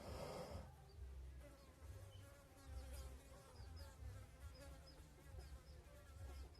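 Turkey hen sitting on her nest making a faint, steady buzzing purr, the strange noise hens make while brooding, with a short raspy burst right at the start.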